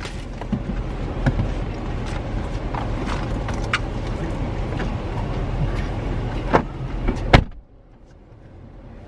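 Car idling with a rear door open, outdoor noise coming in along with rustling and small knocks as a child climbs out. About seven seconds in the car door is slammed shut, and the sound drops to the quieter hum inside the closed cabin.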